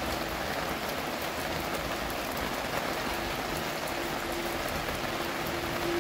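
Steady rain falling: an even hiss with scattered faint ticks of drops landing, and a faint steady hum coming up over the second half.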